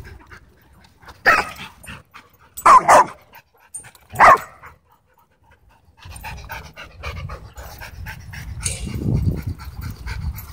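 A dog barks four times, the middle two close together. Then, after a short pause, a dog pants quickly and steadily.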